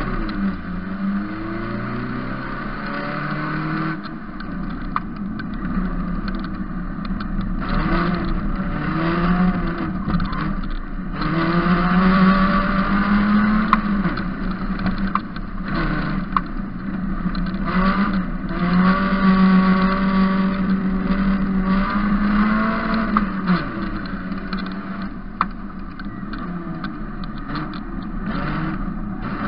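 Engine of an Opel GSI-powered prototype race car heard from onboard while lapping a dirt autocross track. The revs climb and drop repeatedly as it accelerates, shifts and slows for corners.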